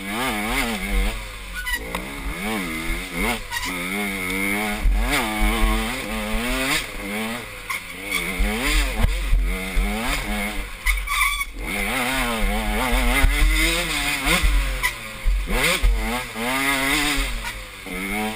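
Dirt bike engine revving up and down again and again as the throttle is worked along a tight, twisty trail, with a low rumble underneath.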